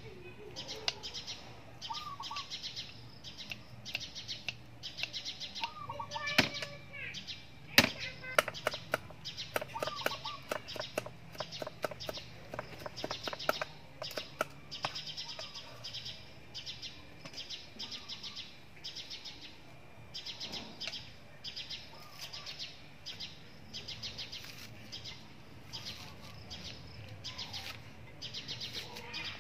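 Small birds chirping over and over. A knife taps quickly on a wooden cutting board while ginger and herbs are cut, busiest in the middle of the stretch.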